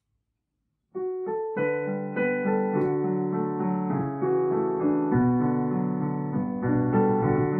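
Digital piano starting the introduction of a worship song about a second in: a few single notes, then full sustained chords.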